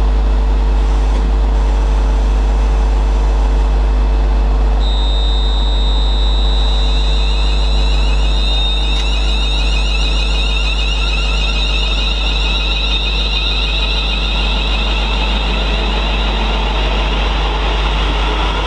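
East Midlands Railway Class 360 electric multiple unit moving off with a steady low rumble. From about five seconds in, a high electric whine from its traction equipment sets in, with tones that climb as the train gathers speed.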